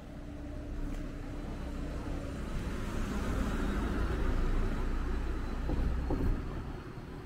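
A motor vehicle driving past, its rumble building to a peak about four to six seconds in and then falling away quickly.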